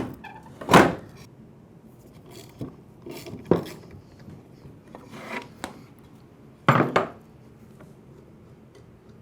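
Knocks, clinks and brief rubbing of tools and metal parts against wood as an electric lawnmower's blade is unbolted and removed, with a block of wood wedged against the blade to hold it. There are several separate strokes, the loudest about a second in and a double knock near the end.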